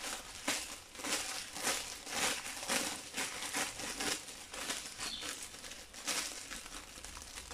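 Clear heat-shrink plastic film crinkling in a run of irregular crackles as a bag with heat-sealed edges is pulled open slowly by hand.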